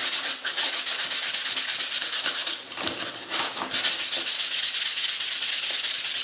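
180-grit sandpaper rubbed by hand in rapid back-and-forth strokes over the edge of pink foam board, with a short break about three seconds in. It is taking off the rough surface left by cutting the foam with a hacksaw blade.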